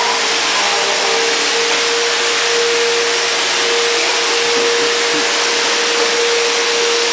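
Upright bagless vacuum cleaner running steadily: a constant rushing hiss with an even motor whine.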